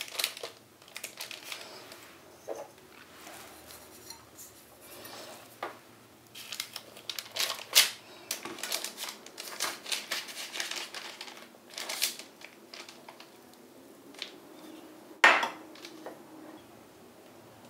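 A table knife cutting scone dough and scraping along a parchment-lined metal baking tray, with repeated short scrapes, taps and crinkles of the baking paper as the pieces are cut and pushed apart. A sharper clink of metal on the tray comes near the end.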